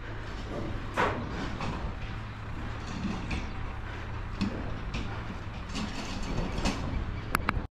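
A steady low hum with scattered metal knocks and clanks from a steel cattle trailer, the loudest knock about a second in; the sound cuts off suddenly near the end.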